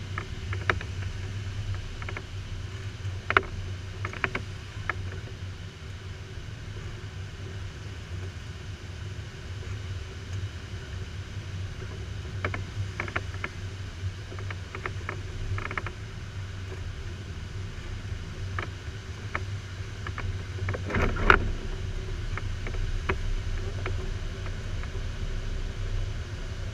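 Airflow rushing over an LS4 glider's canopy, heard inside the cockpit as a steady rush with a low rumble, with scattered small clicks and knocks and one louder knock about 21 seconds in.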